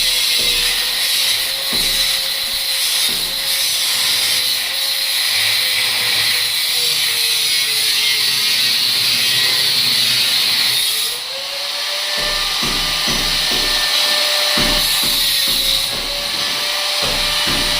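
Electric angle grinder running on steel pipe, a steady high whine with a harsh hiss; its motor pitch sags under load for a few seconds mid-way, then comes back up, with occasional knocks.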